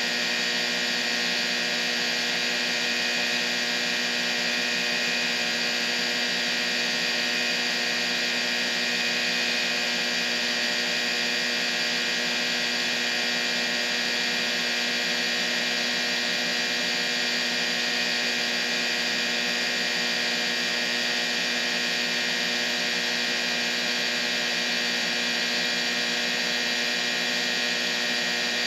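Steady tinnitus-masking sound: a constant hum-and-hiss made of many fixed tones, brightest in the upper middle and with no deep bass, unchanging throughout.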